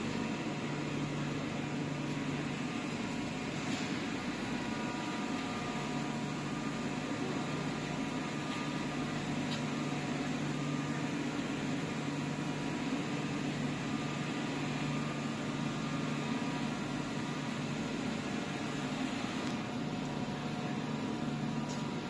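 Machinery of a running PET bottle flake washing line: a steady mechanical hum with a few faint constant tones over a wash of noise.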